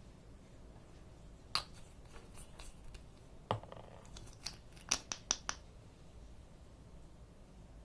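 A run of sharp, short clicks and snaps from something being handled, about seven in all, coming quickest in a cluster just past the middle.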